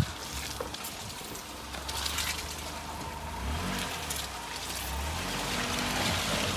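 Daihatsu Mira ES's small three-cylinder engine running at low revs as the car creeps along an off-road track, its note wavering a little, with short stretches of rushing, splashing noise from the wheels.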